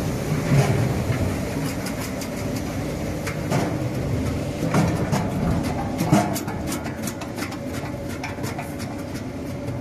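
Brush-and-screw potato washing and peeling machine running, a steady machine hum with irregular knocks and clatter of potatoes tumbling in its steel housing.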